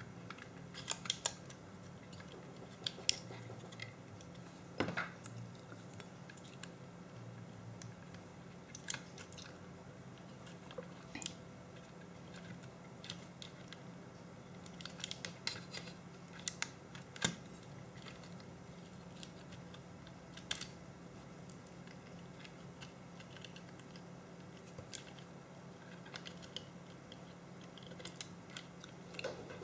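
Scattered small clicks, taps and snaps of plastic and metal parts as the top assembly of an Olympus C-350 Zoom digital camera is pried apart by hand with tweezers and a small screwdriver, over a faint steady low hum.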